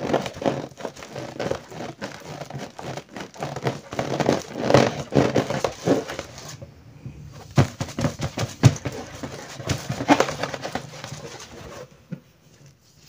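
Fingers rubbing and pressing on an inflated latex balloon: a dense run of irregular rubbery squeaks and scrapes, with a few sharper strokes in the middle, dying away about twelve seconds in.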